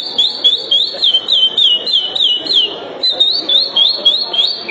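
A man whistling an imitation of the curió (chestnut-bellied seed-finch) song: a fast run of short, high whistled notes, about three or four a second, each sliding down in pitch, with a brief break about three seconds in.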